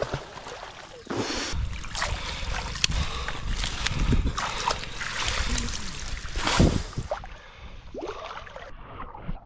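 Water splashing and sloshing around a person wading through shallow water, irregular and uneven. It is loudest through the middle and dies down near the end.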